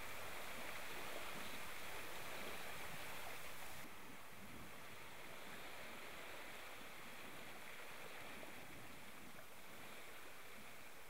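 Soft, steady wash of moving water, faint and even, dropping a little in level about four seconds in.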